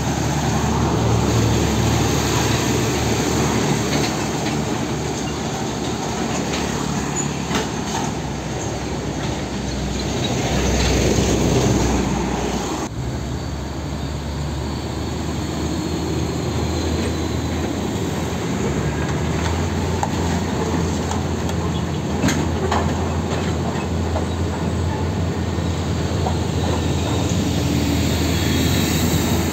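Heavy diesel trucks (MAN tractor units pulling tanker trailers) running and passing close by: steady low engine rumble with tyre and road noise. The sound changes abruptly about halfway through.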